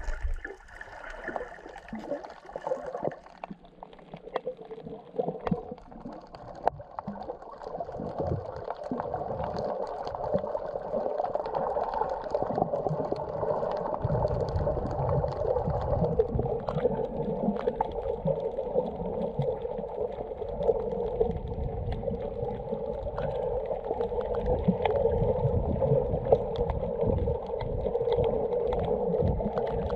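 Muffled moving water and gurgling, with scattered small clicks; a low rumble sets in about halfway through.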